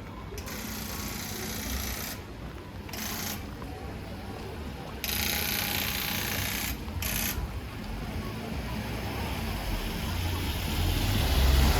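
Outdoor noise with a low vehicle rumble that grows louder near the end, and stretches of hiss that cut in and out abruptly.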